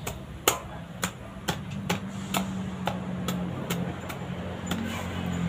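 Machete chopping repeatedly into the fibrous husk of a sprouting coconut: a row of sharp strikes, about two a second, over a low steady hum.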